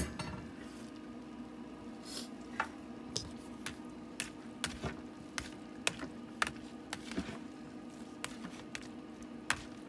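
Plastic slotted spoon stirring boiled, drained mushrooms in a plastic colander: irregular sharp clicks and taps of spoon on colander, roughly one or two a second, starting about two seconds in, over a steady low hum.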